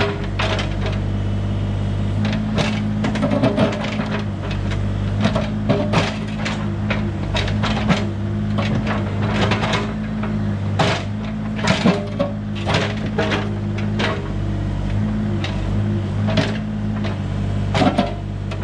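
2021 Bobcat E32 mini excavator's diesel engine running steadily as its bucket pries stones out of an old stone retaining wall, with frequent sharp knocks and clacks of rock against rock and the steel bucket.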